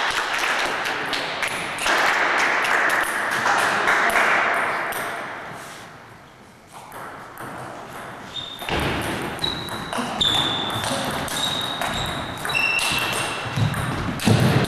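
Applause dies away over the first few seconds. From about nine seconds in, a table tennis ball is hit back and forth in a rally, each bat hit and table bounce a sharp click, many with a short ping.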